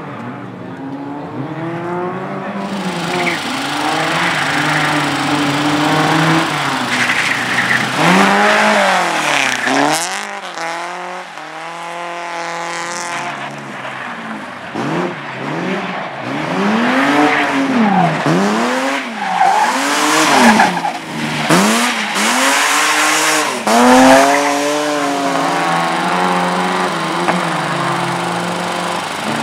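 Race car engine revved hard up and down again and again, its pitch climbing and dropping in quick arcs about once a second through the middle, with tyres squealing as the car is driven through a slalom course.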